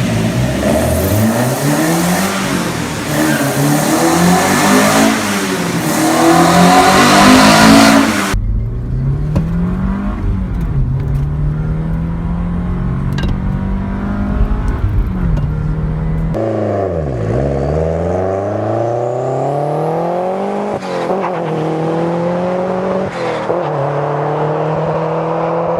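Porsche 944/968 large inline-four engine revving and accelerating, its pitch rising and falling through repeated revs and gear changes. The sound changes abruptly about eight seconds in and again about sixteen seconds in, like three separate recordings strung together; the middle one has a heavy low rumble.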